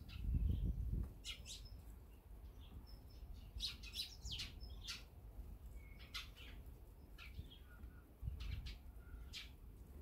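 Eurasian tree sparrows chirping in short, scattered calls, thickest about four seconds in. A low rumble fills the first second.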